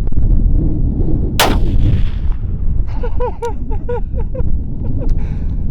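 A single rifle shot about one and a half seconds in, with a short fading echo, over steady wind rumble on the microphone.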